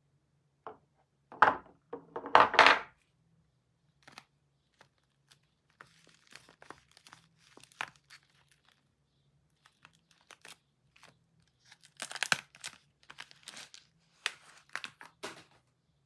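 Wrapper of a bar of Camay soap crinkled in the hands and torn open. There are two loud bursts about a second and a half in, soft scattered crinkles in the middle, and a denser run of tearing and crinkling in the last few seconds.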